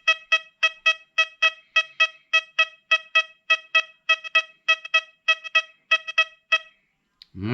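XP Deus 2 metal detector sounding its target tone in repeated beeps of one steady pitch, about three a second, as a 2021 Shield penny is passed over the coil in an air test; the beeps stop near the end. This is the detector's tone for a modern copper-plated zinc penny, reading a steady VDI of 85–86.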